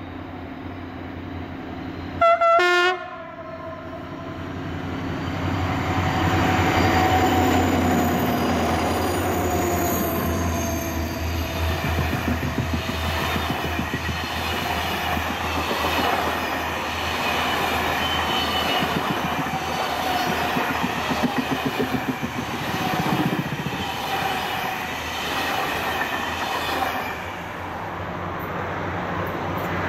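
A diesel locomotive sounds one short horn blast about two seconds in, then runs past hauling a long train of passenger coaches whose wheels clatter rhythmically over the rail joints. Near the end the sound drops as a second train is heard approaching.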